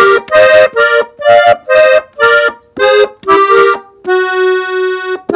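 Gabbanelli button accordion, tuned in F, playing a treble ornament (adorno) in E-flat slowly: a run of short, detached notes about two or three a second, ending on a long held chord about four seconds in.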